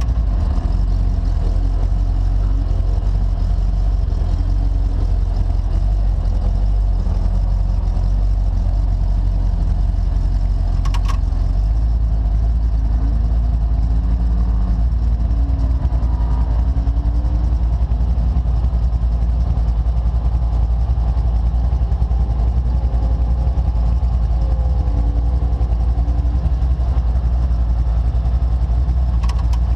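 The DirtKinetics Explorer's engine running through a slow cruising lap, a steady deep rumble heard from on board.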